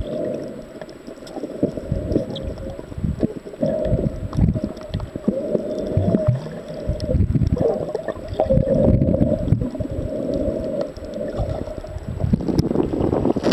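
Muffled underwater sound from a camera held below the surface while snorkeling: water sloshing and rumbling against the submerged housing in irregular swells, with a wavering drone throughout.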